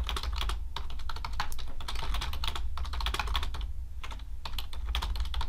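Typing on a computer keyboard: a fast, uneven run of key clicks with brief pauses between words, over a steady low hum.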